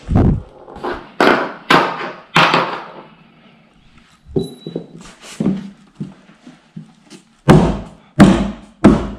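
Repeated heavy thuds of blows on the Kallax shelving unit's panels: several in the first three seconds, lighter knocks in the middle, then four hard thumps in a row about two-thirds of a second apart near the end.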